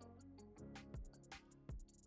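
Background music: held chords with a light ticking beat and a few louder percussive knocks.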